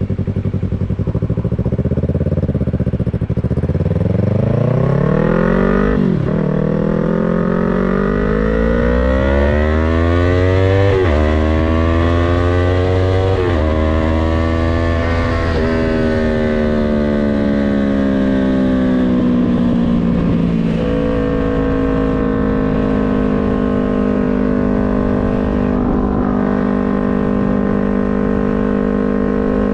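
Yamaha MT-03's parallel-twin engine pulling up through the gears: the engine note climbs and drops sharply at each of about five upshifts. After that the revs ease down and hold steady at a constant cruising pitch.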